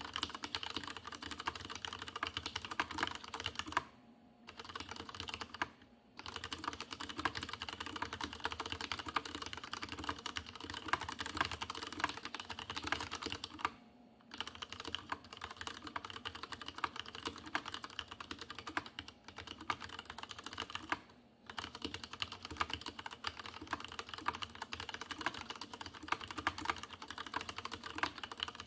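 Fast, continuous typing on a Leopold FC750R tenkeyless mechanical keyboard with unlubricated Cherry MX Red linear switches, keystrokes clacking in a dense stream with a noticeable hollow case resonance. The typing breaks off briefly four times.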